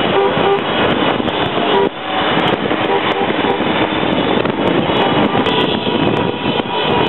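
Continuous din of celebratory honking: many car and scooter horns held and overlapping, over the engines of a crowd of scooters, with a brief dip about two seconds in.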